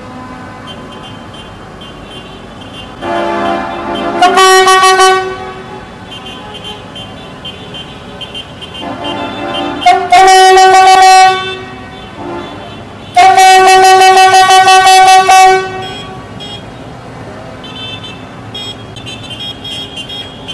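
Vehicle horns sounding three loud, long blasts several seconds apart, each a steady tone lasting one to two and a half seconds, the last the longest.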